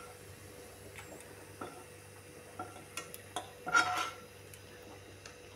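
Steel slotted spoon scraping and clicking against a non-stick kadai of hot oil as the last fried onion pieces are lifted out, with a louder ringing metal clink about four seconds in.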